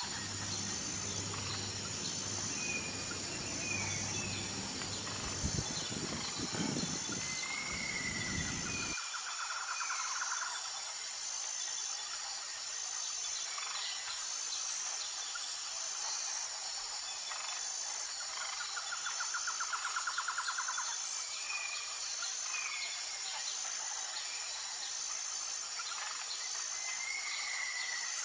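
Nature ambience of insects and birds: a steady high-pitched insect buzzing with trills that come back about every nine seconds and short bird chirps scattered through. A low rumble in the first nine seconds or so cuts off abruptly.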